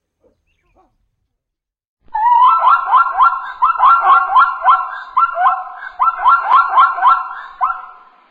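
An animal's call: a rapid series of short, high-pitched calls that each rise in pitch, about three or four a second. It starts about two seconds in and runs for roughly six seconds before fading near the end.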